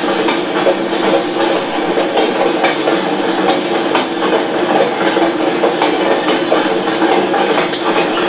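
Freight train's hopper wagons rolling past at a level crossing: steel wheels rumbling on the rails, with irregular knocks as the wheels cross rail joints.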